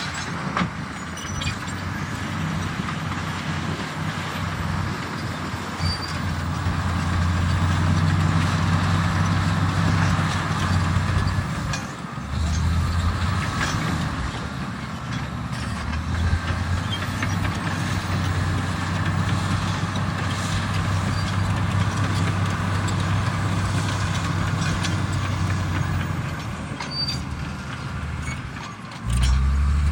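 Komatsu D85EX bulldozer's diesel engine running under load, its low note swelling and easing as the machine works, with a brief dip near the middle and a sudden rise in level at the very end.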